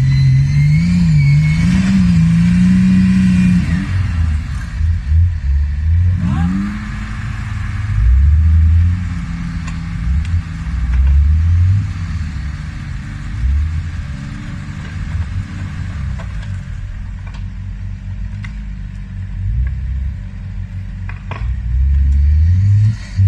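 Off-road vehicle engine revving hard under load, its pitch rising and falling with the throttle. The high note drops about four seconds in, then comes back in uneven low surges and climbs again near the end.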